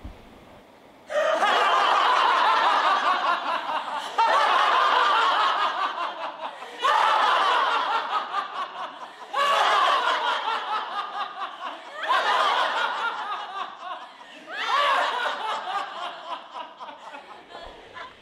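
A group of actors laughing together in six waves, each starting suddenly, sliding down in pitch and trailing off.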